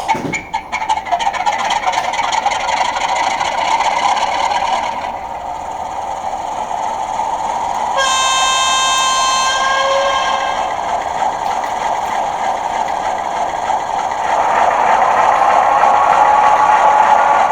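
Sound decoder of a model ND3-2 diesel locomotive playing through the model's small speaker: diesel engine running with little bass, a horn blast about eight seconds in lasting around a second and a half, and the engine sound growing louder and rising in pitch in the last few seconds.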